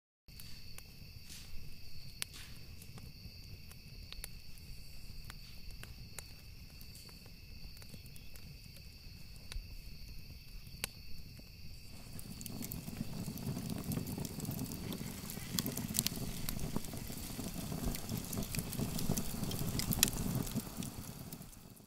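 A steady high trill of night insects with a few scattered ticks. About halfway through, a fire starts crackling and rushing as a folder of papers burns, growing louder toward the end.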